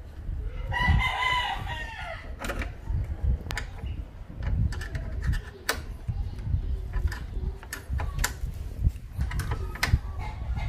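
Scattered light clicks and taps of a ground wire's eyelet terminal and bolt being handled and fastened to the car body. A rooster crows once about a second in, lasting about a second and a half, the loudest sound.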